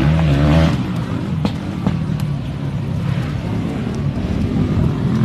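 Motocross dirt bike engines running, their pitch rising and falling as they rev.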